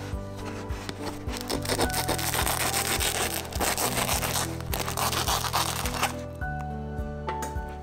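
A knife sawing back and forth lengthwise through a baguette's thin, crisp crust, a dry crackling that starts about a second and a half in and stops about six seconds in, over background music.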